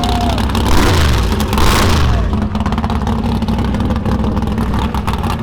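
Car engine running close by with a steady low rumble, swelling louder in a brief rev about a second in.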